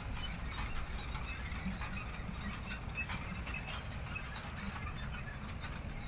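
Manure spreader running: a steady low rumble under irregular mechanical clanking and rattling.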